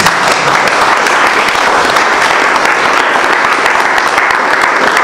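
Audience applauding: many hands clapping together in a steady, even patter.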